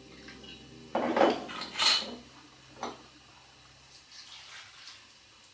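Kitchen clatter of a glass wine bottle and a metal roasting tin on the worktop: a knock about a second in and a sharp clink just before two seconds, then a few faint taps as vegetables in the tin are handled.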